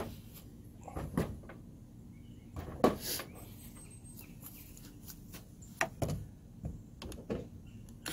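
Scattered light clicks and knocks as a cordless drill and a screw are handled against the Jeep Cherokee's door pillar, the sharpest about three seconds in; the drill motor is not running.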